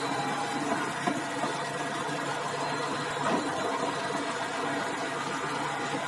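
Chetra T-11 bulldozer's YaMZ-236 V6 diesel running steadily, with a couple of light knocks about a second in and a little over three seconds in.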